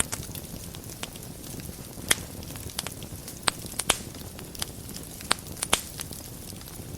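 Wood fire burning in a fireplace: a steady low rumble of flames with scattered crackles and sharp pops from the burning wood, the loudest about two, three and a half, four, five and a half and six seconds in.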